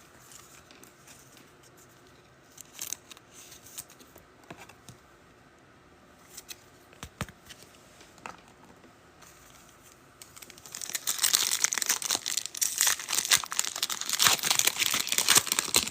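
Faint handling clicks of trading cards, then about two-thirds of the way through, a trading card pack's wrapper being torn open and crinkled, a dense crackling that runs on to the end.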